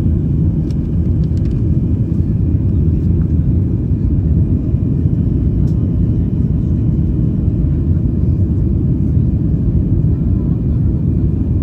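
Steady low rumble inside the cabin of a Boeing 737 MAX 8 climbing after takeoff: its CFM LEAP-1B jet engines at climb power together with airflow over the fuselage, with a few faint clicks near the start.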